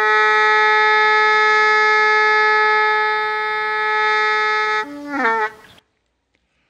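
Background music: a reedy wind instrument holds one long note for nearly five seconds, then plays a short falling run of lower notes and cuts off suddenly, leaving silence for about the last second.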